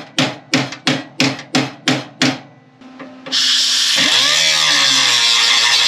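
Hammer blows on the steel of a car's inner fender, about three a second, seven or so in a row. After a short pause an angle grinder with a cut-off wheel bites into the metal with a loud, steady, high grinding.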